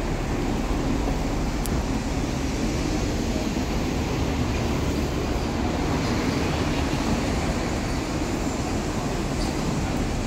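Steady city street traffic noise: an even, low rumble with no single event standing out.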